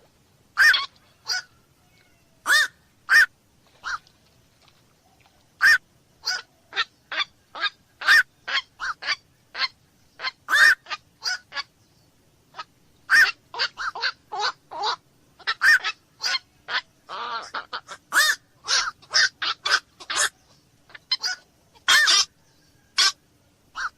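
Black-crowned night herons calling: dozens of short, single-note calls, some alone and some in quick runs of two or three, with a busier stretch of overlapping calls just past the middle.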